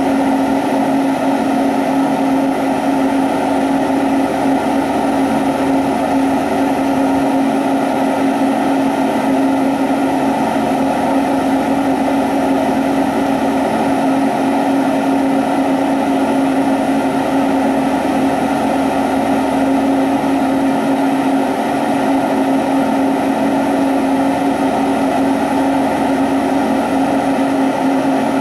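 Lampworking torch flame burning steadily: an unchanging rushing drone with a steady low hum running through it.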